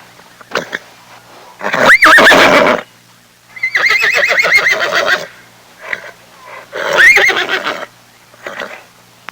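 An equine giving three whinnying calls: a short one, then a longer trembling call, then another short one.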